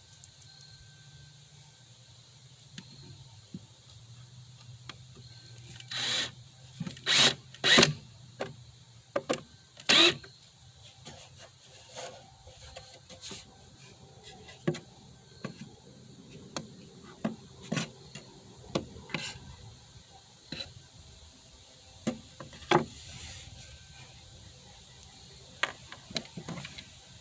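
Hands working wooden pieces on a bench: scattered knocks and clicks, with a few louder knocks bunched about a quarter to a third of the way in, and some soft rubbing between them.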